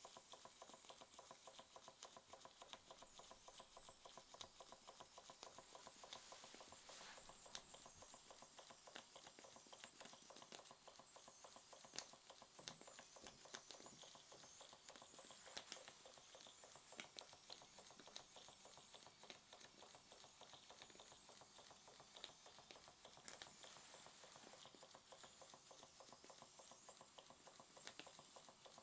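c1920s Stevens Model Dockyard model steam engine running in steam: a faint, fast, even patter of exhaust beats and mechanism, with a few louder clicks.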